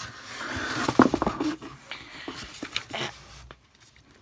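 A Little Golden Book picture book being handled and its stiff pages turned: paper rustling with several sharp taps, the loudest about a second in, then quiet near the end.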